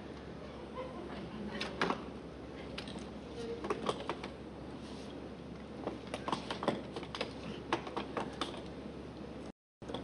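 Scattered light clicks and taps from a marionette being worked at a miniature piano, over a steady low hum; the sound drops out for a moment near the end.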